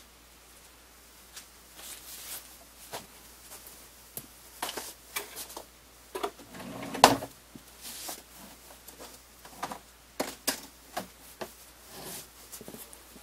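Scattered clicks, taps and knocks of a person sitting down and handling things at a computer desk, with one louder thump about seven seconds in.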